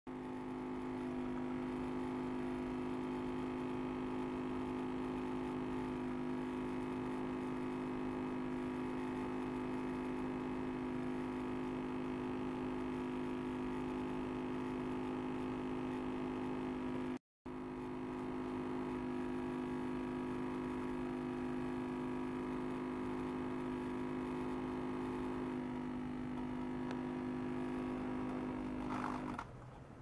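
Small ultrasonic cleaner running with a steady electrical hum, several low tones stacked together. The hum breaks off for a split second in the middle and stops near the end.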